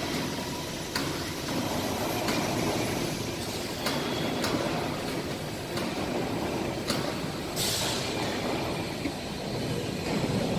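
Hydraulic guillotine shear running, its hydraulic unit giving a steady hum with several sharp clicks spread through the stretch. About eight seconds in comes a short burst of hissing air.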